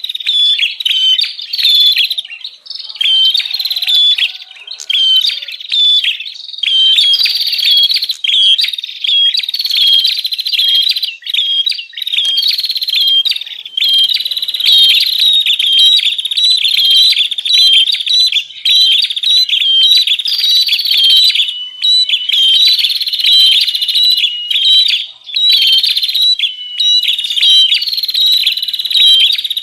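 Prenjak kepala merah (ashy tailorbird) call, played as a lure recording: a busy, nonstop stream of sharp, rapidly repeated high chirping notes.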